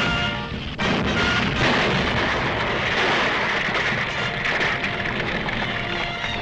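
A continuous rumbling, crashing roar of explosions, like an earthquake effect, takes over about a second in from an orchestral score and runs on beneath the music.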